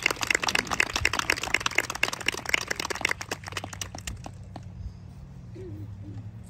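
Audience clapping: a dense, irregular patter of claps that thins out and dies away about three to four seconds in.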